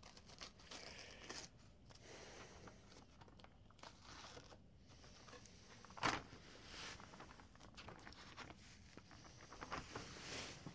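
Faint rustling and tearing of paper being handled. One sharp tap comes about six seconds in.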